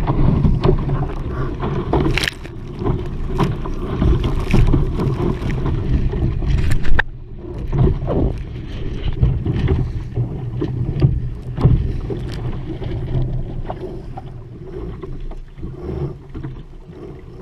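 Wind buffeting the microphone and water splashing against the hull of an RS Aero sailing dinghy driving through choppy water. The noise drops suddenly about seven seconds in and grows quieter toward the end as the water calms.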